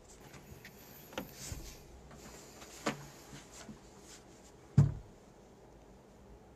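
Three dull knocks, the last and loudest nearly five seconds in, with faint rustling between the first two.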